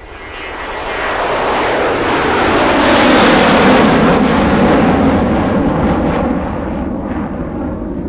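Whitewater rushing and churning around a rubber raft as it runs a river rapid, a steady roar that swells over the first three seconds and then eases slightly.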